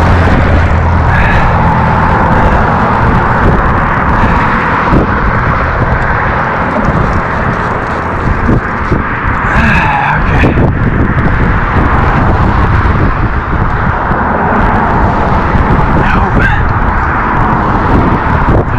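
Road traffic on the bridge: a steady noise of cars and tyres passing, with a heavy low rumble.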